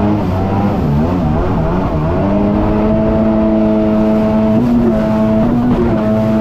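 Jet ski engine running at speed. Its pitch dips and wavers between about one and two seconds in, then climbs and holds steady.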